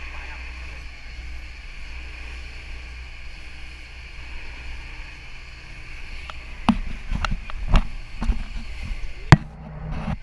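Speedboat under way: a steady low engine drone under a hiss of wind and water. In the second half come a run of sharp knocks, the loudest shortly before the end.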